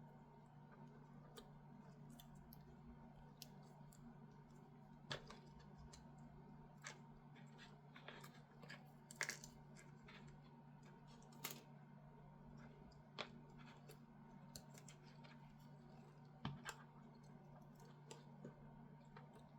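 Near silence over a steady low electrical hum, broken by scattered faint clicks and taps: small parts and tools being handled on a workbench, about half a dozen sharper clicks spread unevenly.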